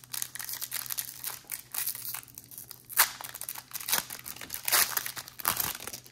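A trading-card pack wrapper crinkling and tearing as it is opened by hand, a dense run of irregular crackles with the sharpest one about three seconds in.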